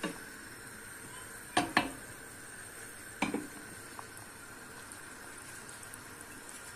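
Utensil clinking and knocking against a metal cooking pot: several sharp knocks, the loudest a pair nearly two seconds in and another pair about a second and a half later.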